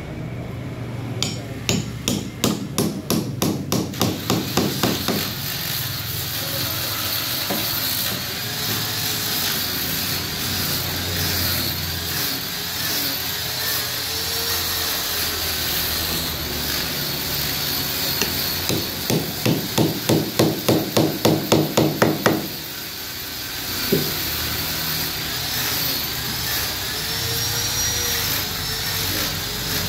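Hammer blows on solid wood in two quick runs of about a dozen strikes each, about four a second, driving the joints of a wooden stool together during assembly. A single knock follows a little later, over a faint warbling background sound.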